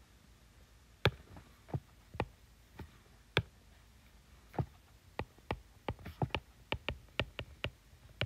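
Hard stylus tip tapping on an iPad's glass screen while handwriting: a string of sharp, irregular clicks, a few spaced ones at first, then quicker from about five seconds in.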